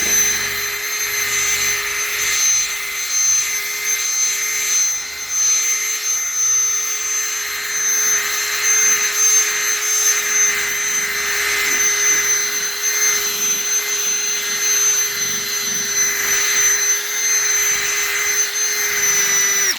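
Electric drill spinning a foam buffing pad against a headlight lens, running at a steady speed with a steady whine over the hiss of the pad, then stopping abruptly near the end.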